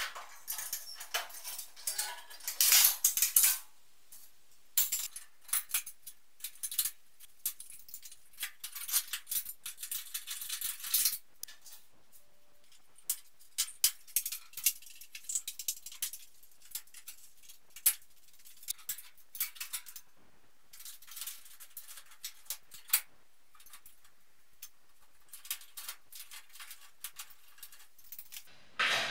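Irregular clicking, rattling and clattering of hand work as old fluorescent light fittings and their wiring are taken down from a metal ceiling. The sounds come in bunches of quick, high-pitched clicks with short quieter gaps between them.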